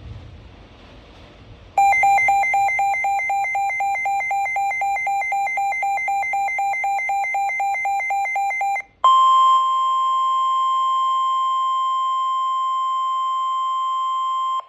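Weather radio warning alert: rapid electronic beeping, several beeps a second, for about seven seconds, then after a short break a single steady tone of about 1 kHz. That steady tone is the NOAA Weather Radio warning alarm tone, which signals that a warning message follows.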